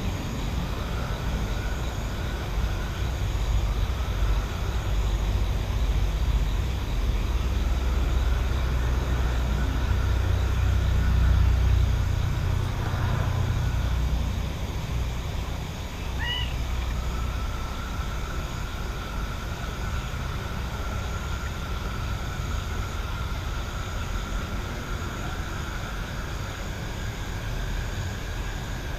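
Night-time countryside ambience under a steady low rumble that swells toward the middle and then eases off. A faint steady higher tone runs underneath, and one short rising chirp comes a little past halfway.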